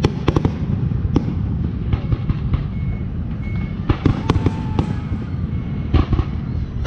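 Fireworks going off: a run of sharp bangs and crackles over a continuous low rumble, with the bangs bunching about four seconds in and again near six seconds.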